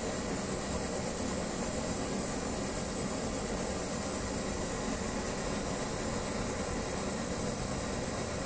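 Brass pressurised kerosene stove burning, a steady rushing noise from its burner flame with a low rumble underneath.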